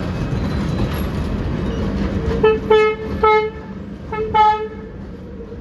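A train's horn sounds five short toots in two groups, three and then two, over the steady low rumble of a running train.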